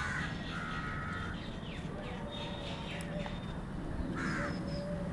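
Crow cawing: harsh calls at the start, a longer one just after, and another about four seconds in, with faint small-bird chirps in the background.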